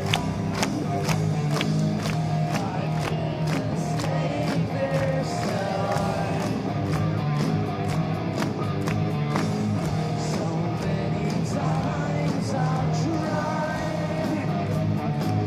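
Live hard rock band playing: a male lead vocal over distorted electric guitar, bass and drums, loud and steady, heard through a phone's microphone from within the audience.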